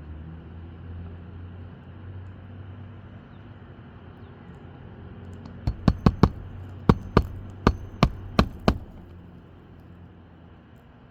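Shingle being nailed down on a roof: about ten sharp knocks in quick succession, beginning about halfway through.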